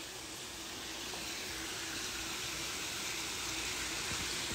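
Steady rush of running water with a faint steady hum underneath.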